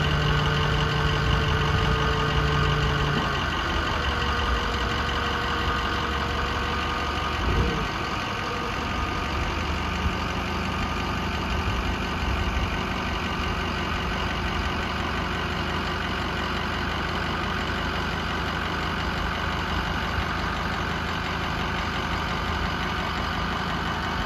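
Pickup-based work truck's engine idling steadily. A steady hum in the idle cuts out about three seconds in, and the sound briefly dips in pitch and comes back about eight seconds in.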